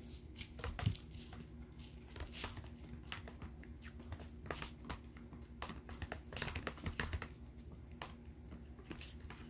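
Metal spoon stirring dish liquid in a plastic container: irregular light clicks and scrapes of the spoon against the plastic as salt is mixed in.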